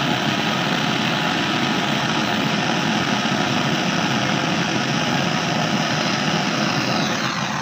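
Handheld gas brazing torch, burning the household cooking gas, with a steady, even hiss from its flame. The flame is playing on a copper pipe joint while a brazing rod melts into it.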